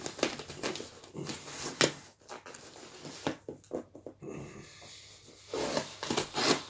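Cardboard parcel being handled and picked at to get it open: scattered rustles, scrapes and sharp knocks of cardboard, with a denser stretch of scraping near the end.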